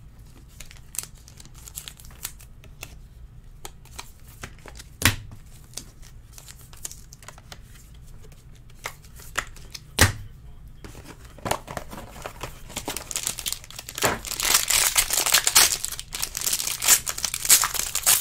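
A few light clicks and two sharper knocks, about five and ten seconds in, as cards in plastic top-loaders are set down on the stack. From about halfway, a foil trading-card pack crinkling and tearing open, loudest near the end.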